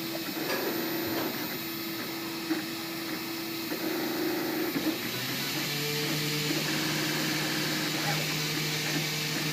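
3D printer running, its stepper motors whirring in held tones that shift in pitch about halfway through as the print head changes moves.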